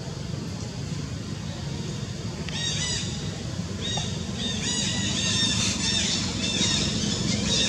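Many short, high-pitched arching animal calls begin about two and a half seconds in and grow denser, over a steady low rumble.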